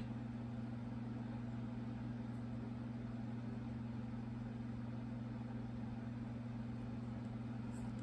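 Steady low hum of background room tone, unchanging throughout.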